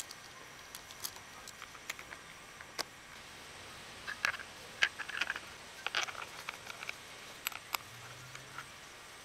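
Scattered light clicks and rattles of a saw chain being handled and fitted by hand around a pole saw's guide bar and drive sprocket, busiest in the middle.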